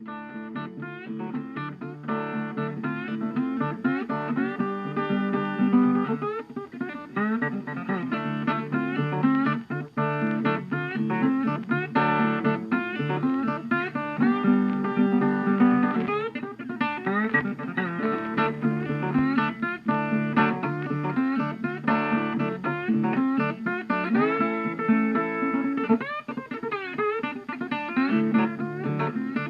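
Background music: a guitar-led instrumental track with plucked and strummed acoustic guitar.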